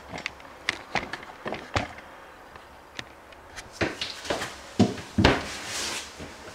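Scattered light clicks and knocks, with a short rustle about five seconds in.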